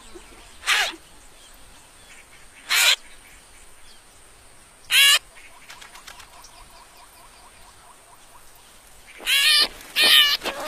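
Short animal calls over a faint outdoor background: three brief cries about two seconds apart, the third with a wavering pitch, then a quick run of louder wavering cries near the end.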